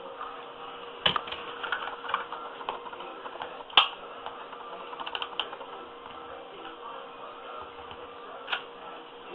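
Scattered light clicks and taps from a hot glue gun being worked around a carpet patch, the loudest about four seconds in, over a faint steady hum.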